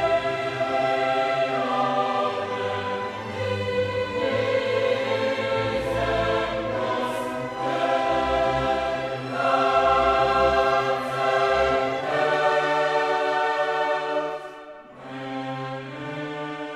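Background music: a choir singing long held notes over an orchestra, dropping in level shortly before the end.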